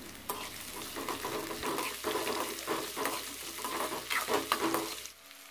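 Sliced onions frying in hot oil in an aluminium kadai, sizzling, while a metal ladle stirs them and scrapes across the pan. The stirring stops near the end.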